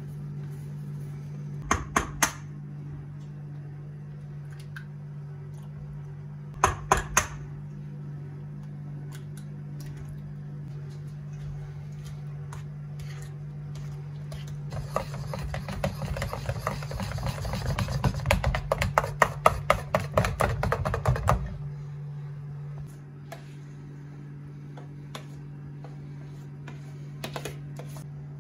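Hand whisk clicking rapidly against a stainless-steel mixing bowl for about six seconds as cream cheese filling is whisked until smooth, over a steady low hum. Before it, two short sets of sharp taps on the bowl.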